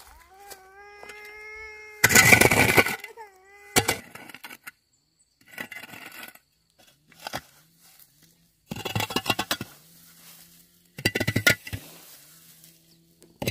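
Hard debris crashing and clattering down, loudest about two seconds in, with two more clattering bursts later. A long, high, drawn-out cry comes at the start, with a shorter one just after the first crash.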